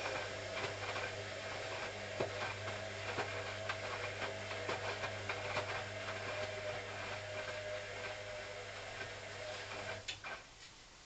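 Hoover CA232 washing machine running, a steady hum with many irregular clicks and knocks over it, which stops abruptly about ten seconds in.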